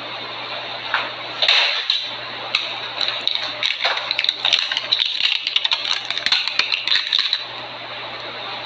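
Plastic crinkling and rustling with many small clicks as fingers rummage among plastic sample nail tips on a plastic sheet. It starts about a second and a half in and dies down near the end.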